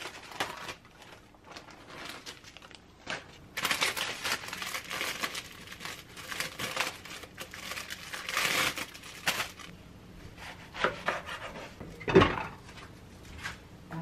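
Thin plastic packaging crinkling and rustling as enoki mushrooms are handled and unwrapped from their bag, busiest in the middle, with a single sharp knock near the end.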